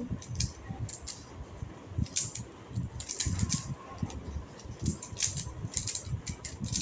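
Two Rubik's cubes being turned fast by hand: an uneven stream of plastic clicks and clacks as the layers snap round.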